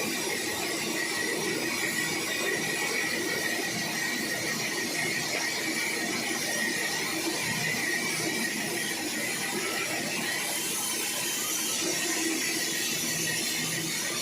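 Sawmill saw running steadily with a held high whine over a rough, noisy hum.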